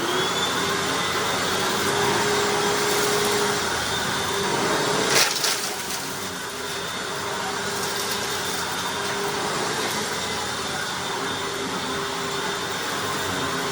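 Hoover Anniversary upright vacuum running with its brush roll on, a steady motor whine, as it picks up dry pasta pieces from carpet. A single sharp crack about five seconds in.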